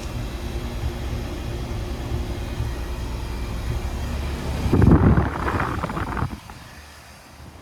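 Outdoor heat pump unit running in heating mode, a steady low hum. A louder rushing noise comes in about five seconds in, and then the sound drops off sharply.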